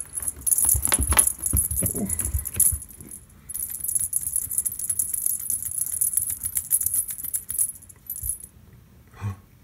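Cat wand toy's dangling attachment jingling and rattling as a cat bats and bites at it, in two stretches that stop about three-quarters of the way through. Soft low thumps come with the jingling in the first two or three seconds.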